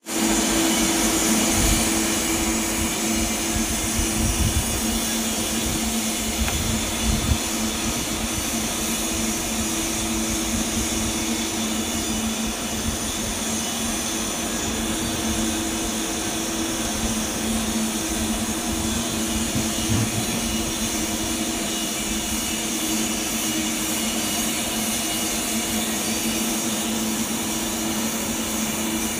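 Steady mechanical drone with a rushing hiss and a constant low hum, the running machinery and ventilation of a fabrication shop. A few faint knocks come in the first several seconds.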